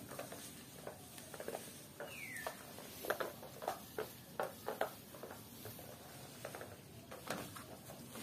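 Faint, irregular soft taps, scrapes and clicks of a cat pawing and batting at a plastic laundry basket on a tile floor. About two seconds in there is one short, high squeak that falls in pitch.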